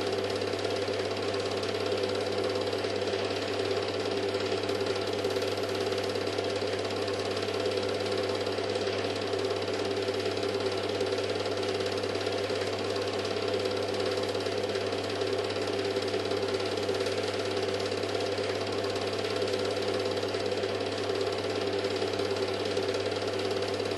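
Film projector running with a steady mechanical whir and rapid rattle of the film transport, unchanging throughout.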